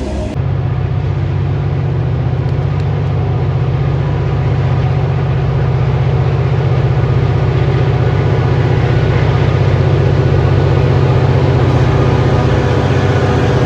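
Diesel locomotive engine running steadily with a deep hum. It starts abruptly just after the start and grows slightly louder.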